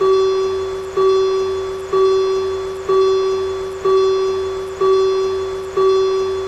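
A railroad-crossing warning bell rings one steady note seven times, about a second apart, each ding fading before the next.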